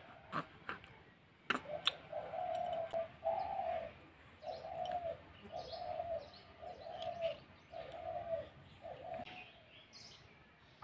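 A dove cooing in a run of about eight low, even notes, each about half a second long. A few sharp clicks and faint high bird chirps come in the first two seconds.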